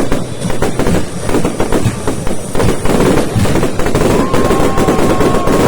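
Fireworks going off in a dense, rapid barrage of bangs and crackling, with no let-up. A thin steady whistle joins about four seconds in.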